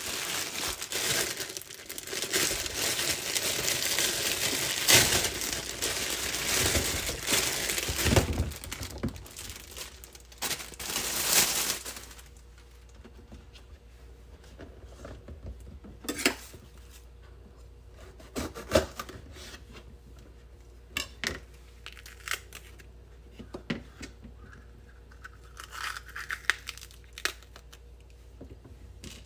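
Thin plastic produce bag crinkling and tearing as it is opened and the green peppers are taken out, loud for about the first twelve seconds. After that, quieter scattered knocks and clicks as the peppers are set on a plastic cutting board and split open by hand.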